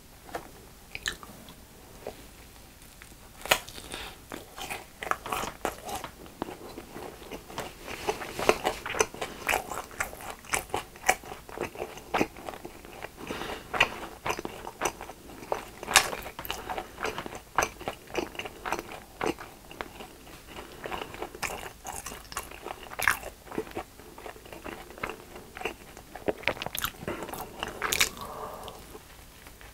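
Close-miked biting and chewing of a Pigbar hot dog, a hot dog in a crunchy crumb coating, with many sharp crunches and crackles of the coating. The crunching starts a few seconds in and goes on densely.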